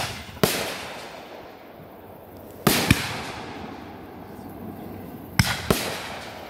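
Aerial firework shells bursting: five sharp bangs, one about half a second in, a pair near three seconds and another pair near the end, each dying away over a second or two.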